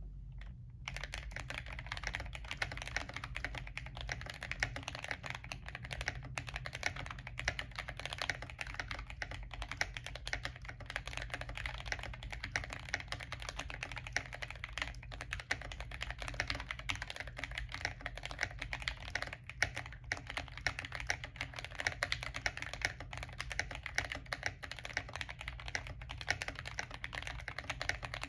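Continuous typing on a Glorious GMMK Compact mechanical keyboard with lubed Kailh Box Brown tactile switches, Cherry-profile keycaps and a dampened, press-and-seal-modded case: a steady, irregular stream of keystroke clacks.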